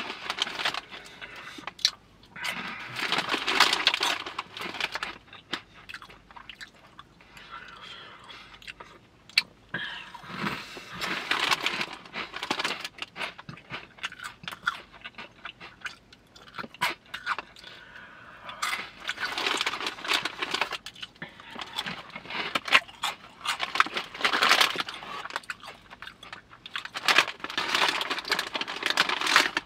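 Close-up chewing of crunchy Hot Cheetos: several loud bouts of crisp crunching, with quieter chewing between them.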